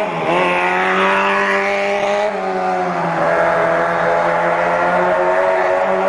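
Honda Monkey minibike with a custom four-cylinder engine conversion running while ridden: a steady, smooth multi-cylinder engine note that dips briefly right at the start, drops in pitch a little over two seconds in, then climbs slightly and holds.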